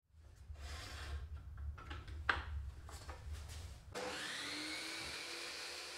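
A few clicks and knocks over a low hum, the sharpest about two seconds in. About four seconds in, a table saw's electric motor switches on, its whine rising quickly to full speed and then running steadily.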